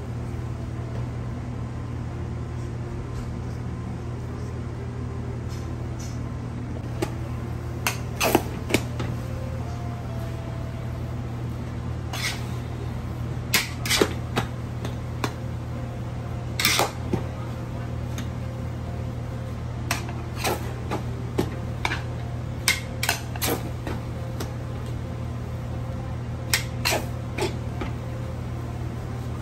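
Metal cooking utensils clinking and scraping against a large steel wok as a mass of rice noodles is tossed, in irregular sharp knocks that come in small clusters, over a steady low hum.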